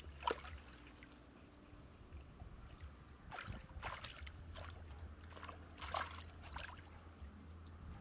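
Shallow water splashing and sloshing as hands swish a mesh net bag through it: short splashes near the start, a cluster around four seconds in and another around six seconds, over a faint steady low hum.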